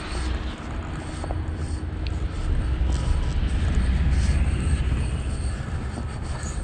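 Low, steady rumble of wind on the microphone of a handheld camera carried outdoors, swelling a little in the middle.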